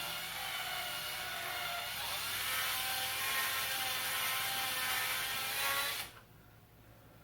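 Electric drill running, boring out a hole in a plastic Cool Whip lid to make it bigger. A steady motor whine that rises a little in pitch about two seconds in and cuts off about six seconds in.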